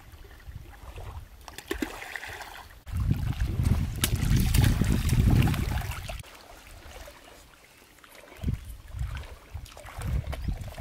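Wind buffeting the microphone at a lakeshore, with small waves lapping. The rumble is heaviest for about three seconds in the middle, then drops off, with a single light knock near the end.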